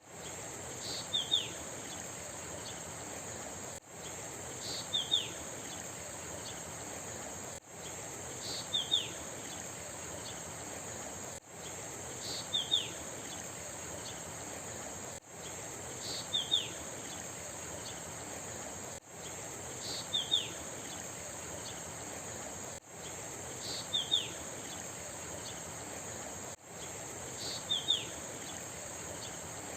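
A bird's short call, a high note followed by two quick falling notes, repeated identically about every four seconds, eight times, over a steady high insect drone and an even hiss of flowing river water. A brief dropout before each repeat marks the recording being looped.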